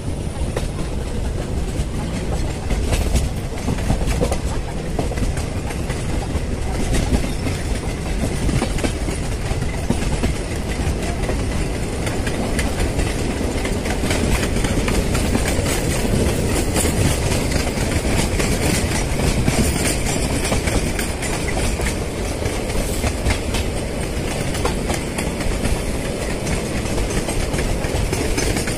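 Passenger train coach running along the track, a steady rumble with wheels clicking and clattering over rail joints and points, heard from the open doorway of the coach.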